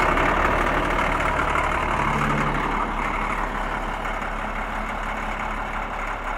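Caterpillar scraper's diesel engine running steadily at idle, just after being started.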